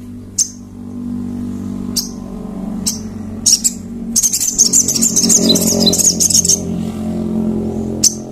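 Sogon (little spiderhunter) calling: sharp single high chips, then a fast high trill lasting about two and a half seconds from about four seconds in, with more single chips after.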